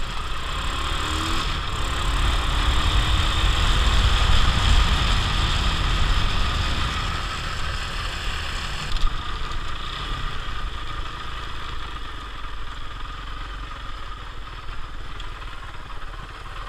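Trail motorcycle being ridden over sand, its engine running steadily with a deep wind rumble on the on-board microphone. It is loudest a few seconds in and eases a little after about nine seconds.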